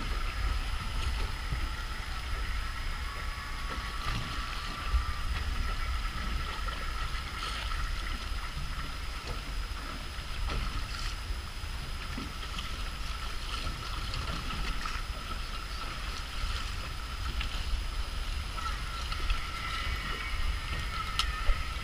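Water sloshing and lapping against the hull of a small open boat, over a steady low rumble.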